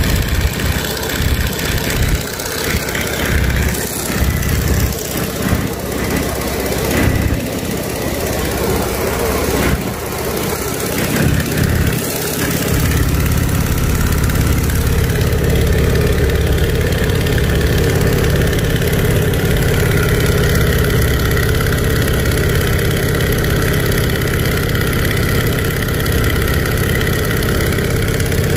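A Boeing Stearman biplane's radial engine and propeller running steadily in flight, heard from the open cockpit with wind buffeting the microphone. The buffeting is gusty for about the first twelve seconds, then settles into an even engine sound.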